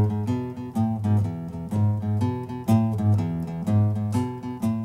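Solo acoustic guitar played in a steady strummed rhythm, with strong bass notes under the chords.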